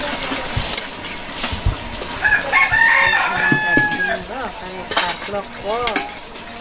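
A rooster crowing once, about two seconds in, ending on a long held note, followed by several short clucks. A ladle scraping and stirring in a wok of frying curry can be heard underneath.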